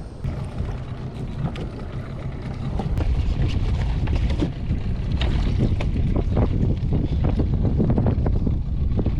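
Small fishing boat running under its outboard motor, with wind buffeting the microphone and irregular knocks of water against the hull; it gets louder about three seconds in.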